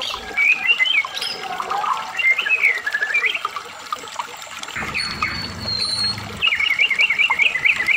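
Medan-type white-rumped shama (murai batu) singing: varied warbling phrases of rising and falling notes, a held high whistle around the middle, then a fast run of repeated notes, about six a second, near the end.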